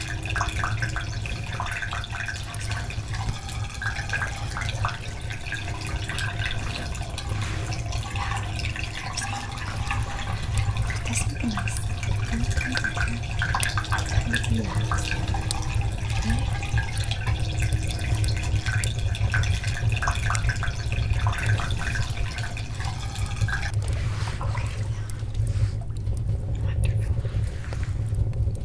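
Bath water dripping and trickling in small splashes over a steady low rumble. The drips fade out about four seconds before the end.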